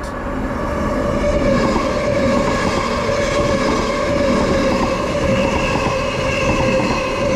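A six-car Transperth electric multiple-unit train running out of service passes close by at speed. It makes a steady electric whine at several pitches over loud wheel and rail rumble, which builds up over the first second or so and then holds.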